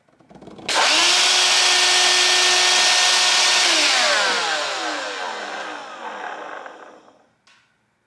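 Ryobi 18V cordless wet/dry shop vacuum switched on with no hose attached, its motor running at full speed with a loud, steady whine. After about three seconds it is switched off and the motor winds down, the whine falling in pitch and fading over a few seconds.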